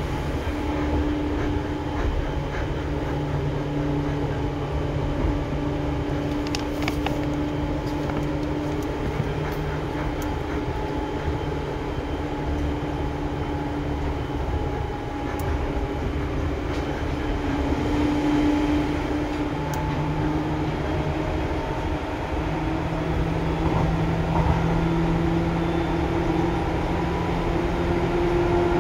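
Seibu 2000 series electric train running, heard from inside the car directly above its line breaker: a steady hum with whining tones that dip about two-thirds of the way through, then climb in pitch near the end as the train gathers speed. A few sharp clicks stand out over the running noise.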